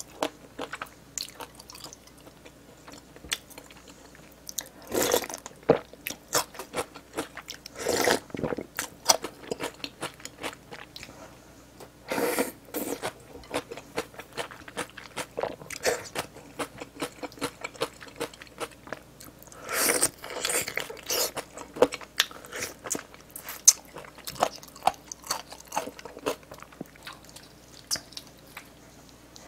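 Close-miked eating: wet chewing and crunchy bites of food, a dense run of irregular clicks with louder crunches every few seconds.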